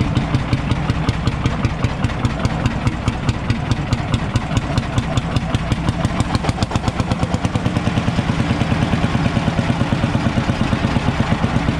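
Ursus C45 tractor's single-cylinder two-stroke hot-bulb engine running under way, its exhaust beating in a fast, even rhythm of sharp pulses.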